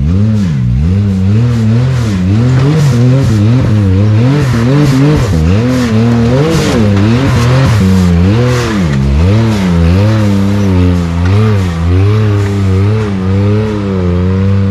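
Side-by-side UTV engine revving up and down in repeated throttle bursts, its pitch rising and falling every second or so, as the machine works its way up a rocky boulder climb.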